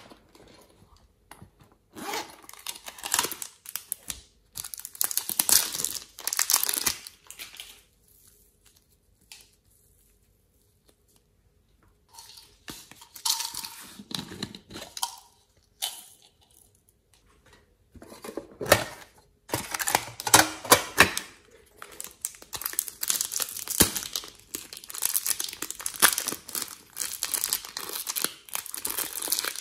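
Hands crinkling and rustling plastic packaging in bursts, with short quiet pauses between them. Around the middle a plastic toy container is twisted open, and near the end a thin plastic bag of clay is crinkled steadily.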